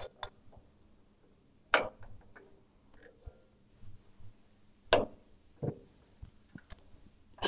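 A few sharp metallic clicks and knocks, the loudest about two seconds and five seconds in, from the radial drilling machine's handles and lever being worked to set its position.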